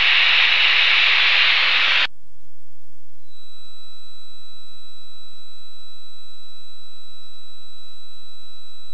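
Steady hiss of small-plane cockpit noise heard through the headset intercom feed, cutting off abruptly about two seconds in. After a second of quiet, a steady electronic beep tone with overtones starts and holds unchanged.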